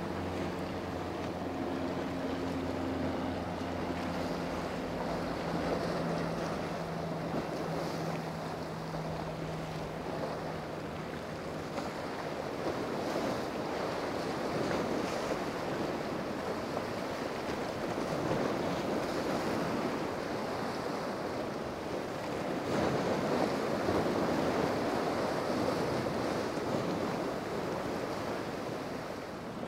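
A passing powerboat's engine hum fading away over the first ten seconds or so, then steady surf and waves with wind blowing across the microphone, swelling twice.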